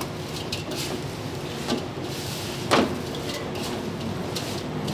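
Cooked rice being tossed and mixed by gloved hands in a large stainless-steel bowl: soft scraping and rustling against the metal, with scattered small clicks and one sharper knock about three seconds in, over a steady background hum.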